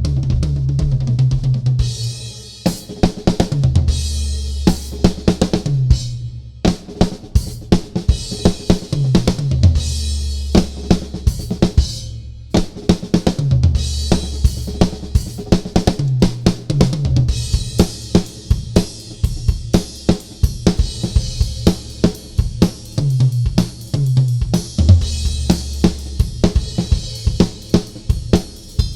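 Gretsch Renown maple drum kit played in a fast solo: snare, toms and bass drum with hi-hat and crash cymbals. It pauses briefly near the start and again about twelve seconds in.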